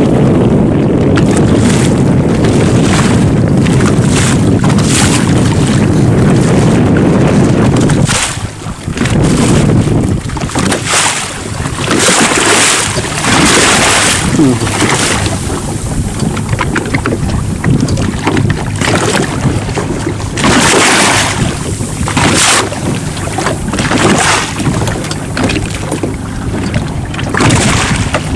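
Wind buffeting the microphone and choppy water splashing against a small boat's hull. A heavy low rumble stops about eight seconds in, followed by irregular gusty rushes of spray and wind.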